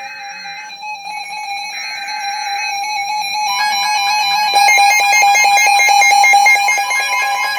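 Emergency Alert System audio between two warnings: music-like electronic tones over a steady alert tone. In the first three seconds there are two roughly one-second bursts of harsh SAME data header tones. From about halfway, more tones stack in and it grows louder.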